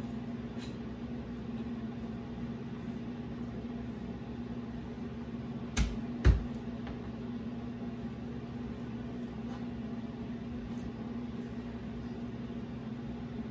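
Steady low hum of a running kitchen appliance, with two sharp knocks about six seconds in, half a second apart, as a knife works garlic on a cutting board.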